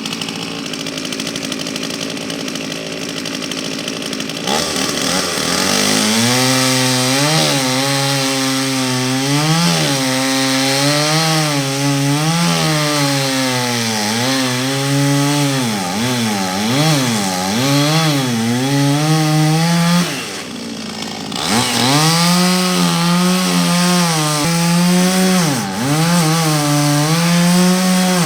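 Two-stroke chainsaw cutting into wood, its engine pitch rising and dipping as the chain loads and frees in the cut. It drops off briefly about twenty seconds in, then cuts again.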